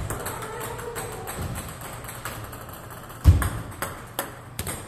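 Table tennis ball clicking sharply off the paddle and table several times, with two heavier thumps, one at the start and one about three seconds in. Faint music plays underneath.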